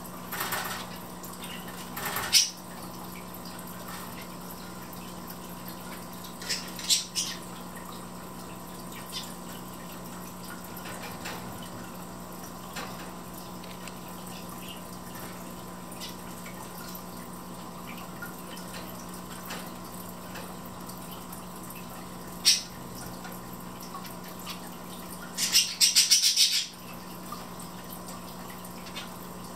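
Caged zebra finches: a few short, sharp chirps and clicks scattered over a steady low hum, with a quick run of several of them near the end.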